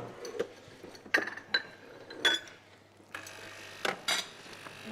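Kitchen clatter of dishes and cutlery: irregular clinks and knocks, some with a short ringing tone, as of spoons and crockery being handled.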